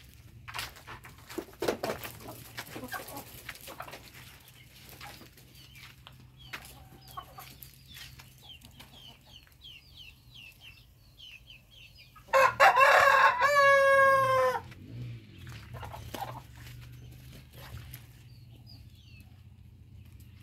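A rooster crows once, loudly, about twelve seconds in, ending on a long held note. Small birds chirp faintly before it.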